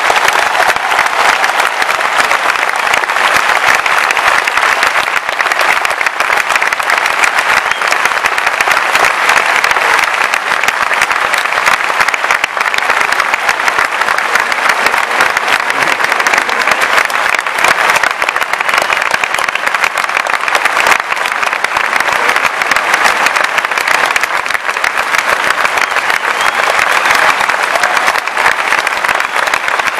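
Audience applauding steadily, a dense even sound of many hands clapping.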